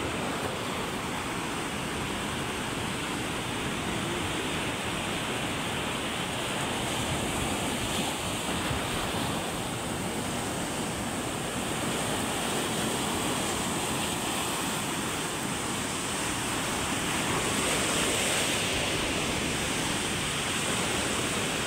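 Big sea waves breaking and washing up the beach: a steady rush of surf that swells a little as a larger wave comes in near the end. The surf is rough enough that the small outrigger boats cannot go out.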